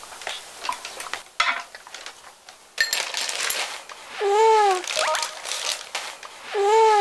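Metal tongs and kitchen scissors clinking against a tabletop grill pan and dishes as meat is cut and served. In the second half, two short identical rising-and-falling tones about two seconds apart are the loudest sounds.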